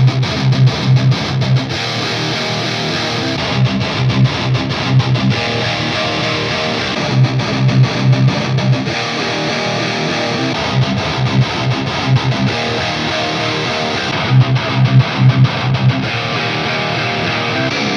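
High-gain distorted electric guitar, an ESP LTD NW-44 with a Bare Knuckle Aftermath pickup, playing the same heavy rhythm riff with clusters of short low chugs through one tube amp head after another, each with its own chosen cab impulse response. The amp changes about every three and a half seconds: Mesa Boogie Dual Rectifier, then others including the Orange Rockerverb 50 MKIII and the Randall Diavlo 100.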